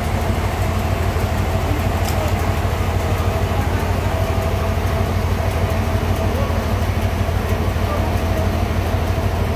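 Portable sawmill running steadily with a constant low engine hum.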